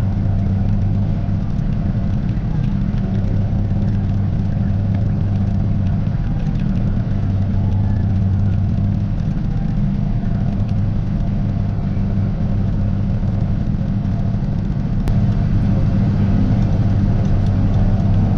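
Tractor engine running steadily under load, pulling a pull-type forage harvester that is chopping corn, heard from inside the tractor cab as a constant low drone. It grows slightly louder a few seconds before the end.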